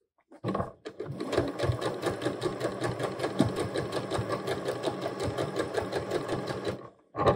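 Domestic sewing machine stitching steadily through the layers of a waistband casing, starting about half a second in and stopping near the end, followed by a brief second run of a few stitches.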